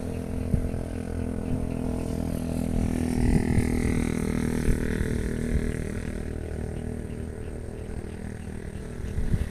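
A steady motor hum over a low rumble, swelling somewhat a few seconds in and easing off toward the end.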